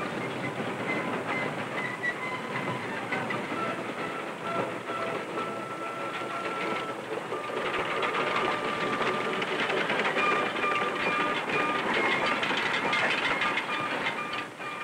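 Steam train running: a steady clatter and hiss that grows louder about halfway through, with thin held high tones over it.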